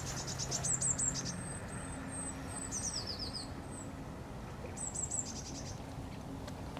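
Small birds singing: short, high-pitched trilled phrases repeated several times, one sliding down in pitch about three seconds in, over a steady low hum.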